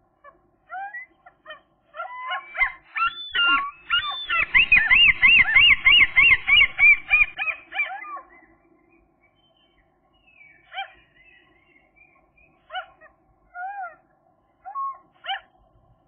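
Gull calling: a loud run of quickly wavering, rising-and-falling cries from about two seconds in to eight seconds in, then a few short single calls spaced out near the end.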